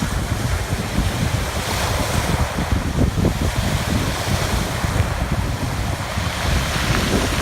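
Sea waves washing onto the shore, with strong wind buffeting the microphone.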